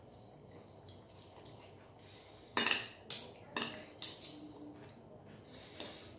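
Table knife and fork clinking and scraping against a plate as food is cut, with a run of sharp clatters about halfway through and one more near the end.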